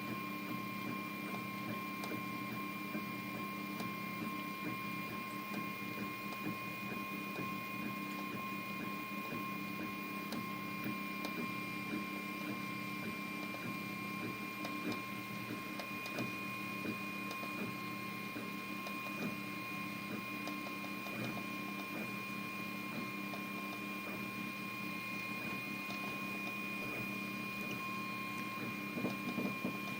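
Anet A8 3D printer running a print: a steady mechanical whirring with constant high whining tones and faint scattered ticks.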